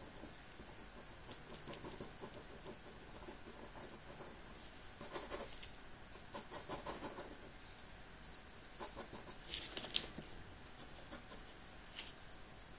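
Felt-tip ink pen scratching across paper in short strokes and hatching, in scattered bursts, with a louder scrape near ten seconds.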